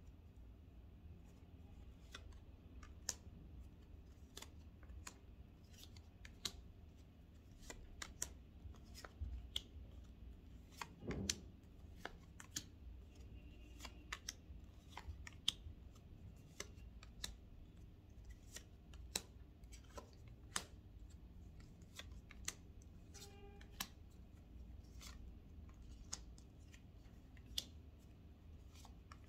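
Tarot cards being shuffled by hand: faint, irregular clicks and snaps of card edges, one to a few a second, with a longer rustle of cards about eleven seconds in.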